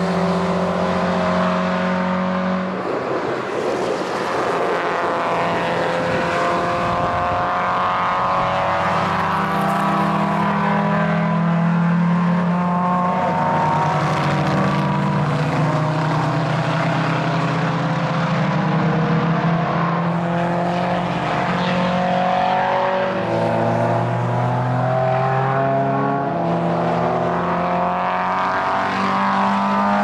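Engines of several historic racing cars running hard as a pack accelerates up the track and away, their overlapping notes each rising and then dropping at gear changes.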